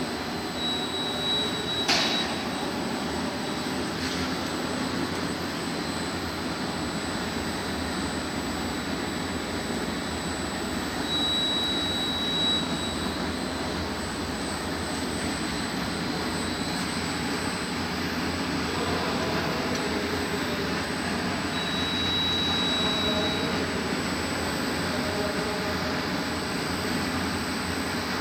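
Semi-automatic shrink-wrapping machine running with a steady blower-like noise. There is a sharp click about two seconds in, and a short high tone sounds three times, about ten seconds apart.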